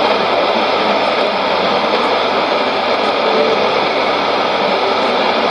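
Steady hiss of shortwave static from a Sony ICF-2001D receiver tuned to an AM broadcast on 7290 kHz, with no programme audible through the noise.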